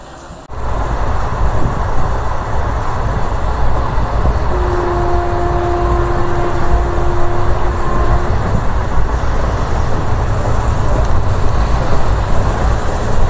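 ICF passenger coach of a moving express train, heard from its open doorway: a loud, steady rumble of wheels on the track. It gets suddenly louder about half a second in, and a steady tone sounds for about four seconds midway.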